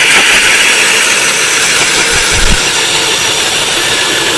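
A motor running steadily and loudly, its sound cutting in and out abruptly.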